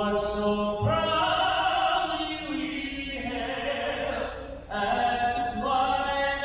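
Singing amplified through an arena's sound system, in long held notes that echo around the hall.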